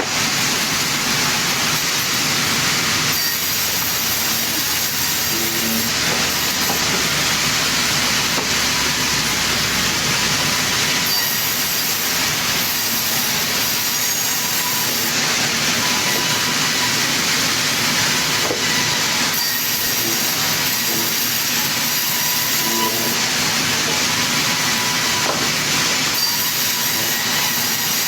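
Sawmill circular saw cutting through a log: a loud, steady, high-pitched noise of the blade in the wood.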